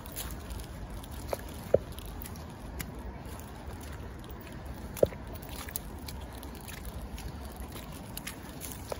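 Footsteps crunching over seaweed and wet sand on a shoreline, with scattered small clicks and two sharper clicks, the louder about five seconds in.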